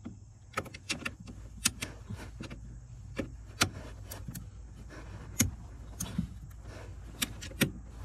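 Irregular sharp metallic clicks and taps of a 10 mm socket and ratchet being fitted by feel onto the hidden nut behind a Nissan Maxima's accelerator pedal, over a steady low hum.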